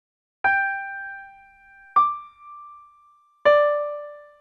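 Three single piano-like keyboard notes played one after another about a second and a half apart, each struck and then fading. The first is a middle note, the second higher, the third lower: a set of tones to compare for pitch.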